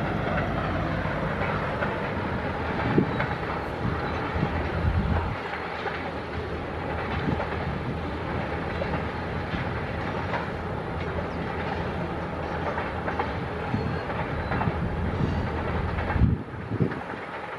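Manifest freight train rolling past, its wheels clicking and knocking on the rails, with a low rumble that eases off about five seconds in and again near the end.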